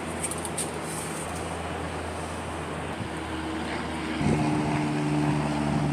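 Steady low mechanical hum. About four seconds in, a louder, steady engine-like drone sets in and holds.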